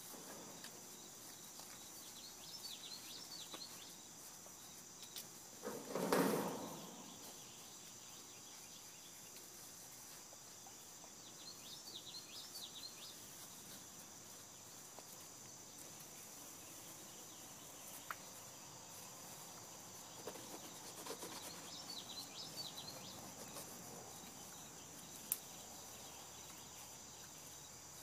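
A steady insect chorus in the background, with a bird giving a short burst of chirps three times, about ten seconds apart. About six seconds in comes a loud burst of noise lasting about a second. Later there is softer rustling in leaf litter and a couple of sharp clicks.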